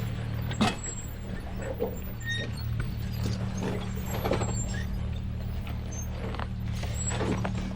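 Off-road vehicle's engine running steadily at low revs while crawling down a rocky trail, with scattered knocks and rattles from the tyres and body on rock and short high squeaks. The loudest knock comes about half a second in.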